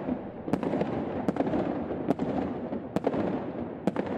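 Fireworks going off: five sharp bangs a little under a second apart over a continuous crackling rumble.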